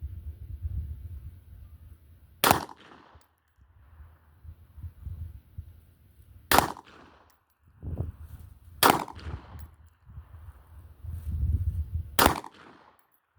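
Four single gunshots fired a few seconds apart, each ringing briefly after the report.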